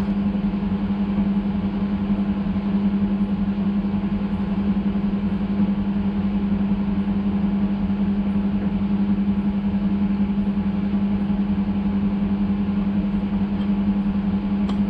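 Cincinnati milling machine running steadily: a constant mechanical hum with one strong low tone.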